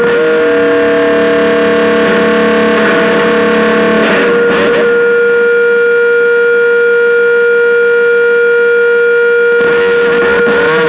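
Electronic feedback drone from a homemade amplified noise instrument built from metal springs or rods with pickups. It is a loud, steady mix of held tones, one unchanging throughout. The upper tones switch about four seconds in after a brief warble, and the sound shifts again near the end.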